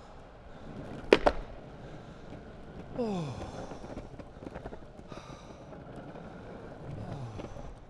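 Longboard wheels rolling over pavement with a steady rumble. There are two sharp knocks close together about a second in. A falling-pitched sound comes about three seconds in, and a fainter one near the end.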